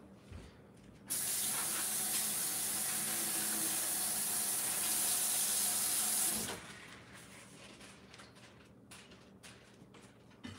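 Kitchen faucet running in a steady stream as broccoli is rinsed under it, turned on about a second in and shut off about six and a half seconds in, followed by a few light knocks.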